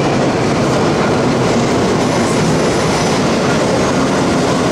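Vintage subway train pulling into an underground station beside the platform: a loud, steady rumble and rattle of wheels on the rails.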